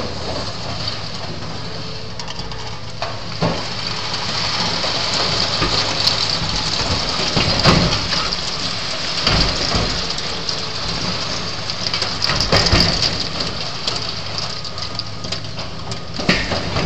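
Demolition excavator's diesel engine running steadily under a high hiss, with scattered cracks and knocks as its arm pulls over a glass-and-metal-clad bridge tower. The loudest cracks come about midway and again two-thirds of the way in.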